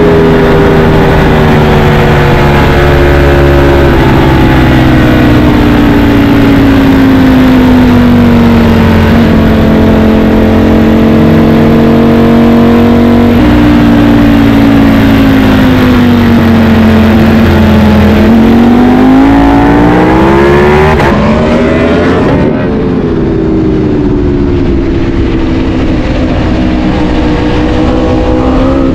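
Ducati Panigale V4 S's V4 engine heard from the rider's seat, its pitch falling as the bike slows with downshifts, then rising sharply as it accelerates hard about two-thirds through, before settling into a steadier, lower note.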